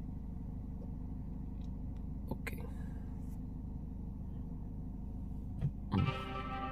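Steady low rumble inside a parked car's cabin, with a few light clicks. About six seconds in, a song starts over the DLS Scandinavia front three-way component speakers (mid-bass, midrange and tweeter, subwoofer off), opening with bell-like chimes.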